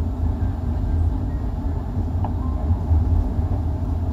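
Steady low rumble of a 25G passenger coach running over the rails, heard from inside the coach.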